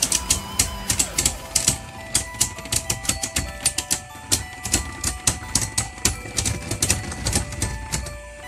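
Two spinning Beyblade Burst tops, Helios Volcano and Tempest Dragon, rubbing and knocking against each other in a plastic Beyblade stadium, giving rapid, irregular clicks. Background music with held notes plays under them.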